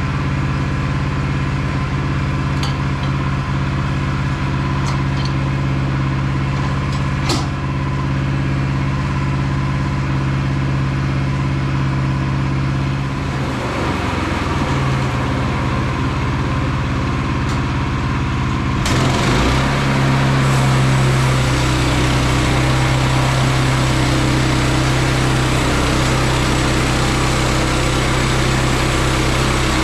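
Small gasoline engine of a Woodland Mills HM122 bandsaw mill running steadily. Its pitch wavers about halfway through, then it speeds up about two-thirds of the way in and runs louder and busier.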